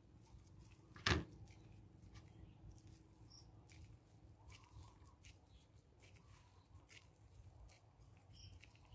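Faint squishing and small clicks of hands kneading and squeezing a sticky, wet shrimp-bait paste in a plastic bowl. One brief louder sound comes about a second in.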